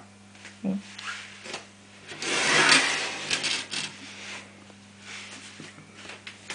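Glass sliding door of a terrarium rubbing along its track as it is pushed, a noisy scrape of about a second and a half, with a few clicks and knocks around it. A steady low hum runs underneath.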